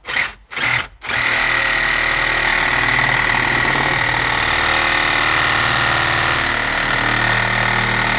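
DeWalt DCS367 18-volt brushless cordless reciprocating saw cutting wood. It is triggered in two short blips, then runs steadily at speed for about seven seconds with a high steady whine.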